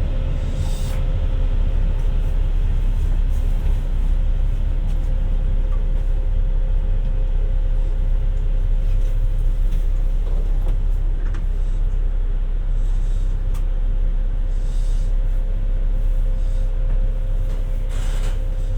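Running noise of a JR Shikoku 2700 series diesel limited express heard inside the train: a steady low rumble of engine and wheels on the rails, with a steady whining tone and a few faint clicks.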